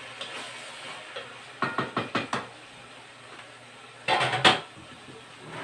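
Kitchen knocks: a quick run of sharp wooden and metal knocks about two seconds in, then a louder clatter about four seconds in. Underneath is the faint sizzle of ground pork frying in an aluminium pot on a gas burner.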